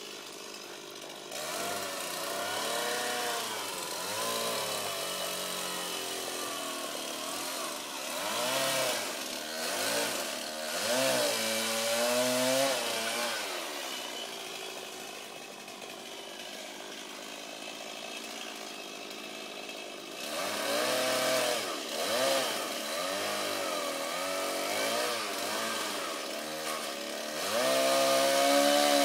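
Chainsaw cutting up in a tree, its engine revving up and down in repeated bursts so the pitch rises and falls. It runs quieter and steadier for a few seconds in the middle, and is loudest near the end.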